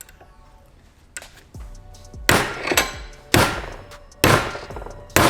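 Hammer blows knocking loose a tight ring on an Audi high-pressure fuel pump: a few light taps, then four hard metal strikes about a second apart. The part needs excessive force to come undo.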